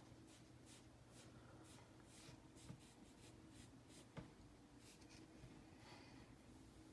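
Faint soft strokes of a PanPastel sponge applicator rubbing pastel onto paper, with two small ticks near the middle.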